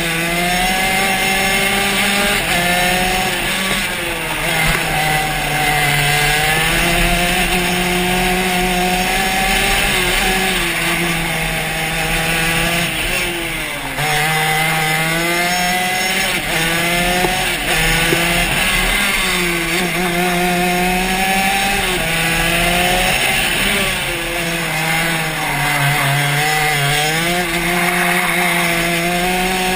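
Shifter kart's two-stroke engine running hard on a lap, heard from on board. Its pitch climbs and falls back again and again as the gears are run up and down through the corners.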